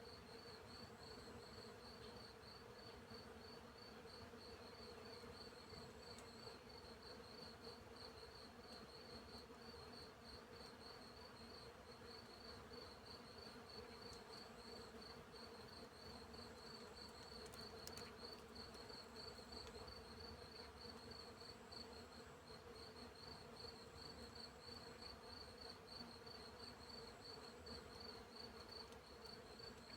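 Faint field insect chorus: crickets chirping in a continuous fast pulse with a steady buzzing hum of bees underneath, and a higher insect trill coming and going. A single faint click about halfway through.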